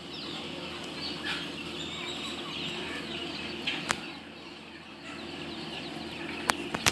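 Birds chirping in the background, many short high chirps, over a steady low hum, with a few sharp clicks near the end.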